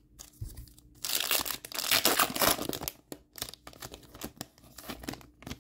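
Foil trading-card pack wrapper crinkling and tearing as it is opened: a dense crackle for about two seconds starting a second in, then lighter rustling and a few clicks as the cards are handled.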